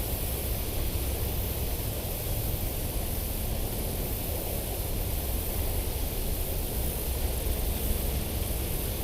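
Steady wind noise on the microphone: a low rumble with a constant hiss above it, and no distinct events.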